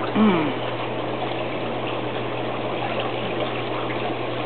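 Steady churning of spa water with a low, even pump hum. A short falling voice-like sound comes about a quarter second in.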